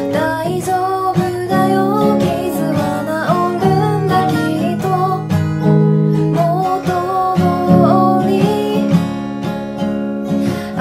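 A woman singing in Japanese over her own strummed acoustic guitar. The voice stops about nine seconds in while the guitar strumming carries on.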